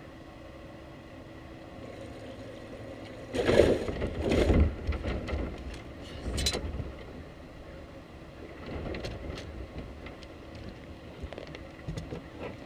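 Steady low hum of a bass boat on the water, with a faint steady tone. Louder rushes of noise come between about three and five seconds in, with a short knock about six and a half seconds in.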